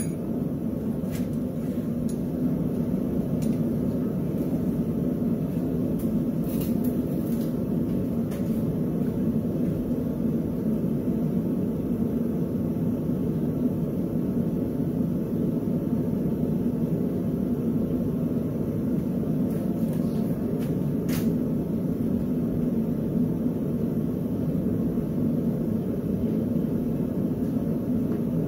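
Steady low mechanical roar that runs on without change, with a few faint clicks scattered through it.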